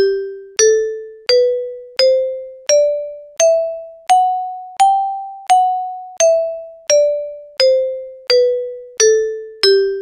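A sequence of fifteen bell-like chime tones, struck about once every 0.7 seconds. They climb step by step in pitch to a peak near the middle, then step back down to the starting note, and each rings out and fades before the next.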